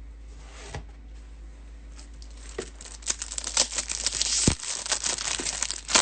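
Plastic wrapping being torn and crinkled, starting about three seconds in after a few faint clicks and running on as a dense crackle.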